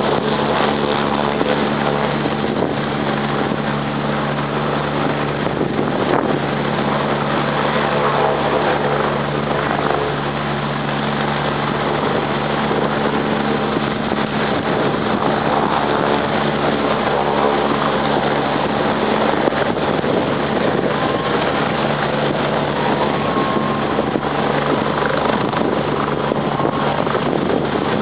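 STARS air ambulance helicopter running steadily, its engine and rotor giving a constant drone with a low hum and a wash of noise.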